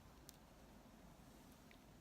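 Near silence: faint room tone with a soft click about a third of a second in.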